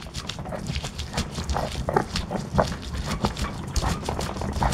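Stone pestle grinding and scraping on a flat stone grinding slab (ulekan), crushing chillies and garlic into a spice paste in quick, irregular strokes.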